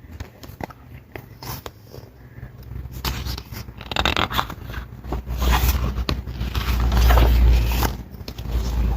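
Rustling, crinkling and clicking of an album's paper and plastic packaging being handled, with heavy low bumps on the microphone from about five to eight seconds in.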